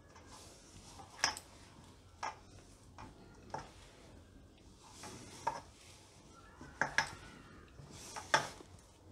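Hands kneading crumbly flour dough in a stainless steel bowl, with about eight sharp, irregular knocks of hands and dough against the metal bowl.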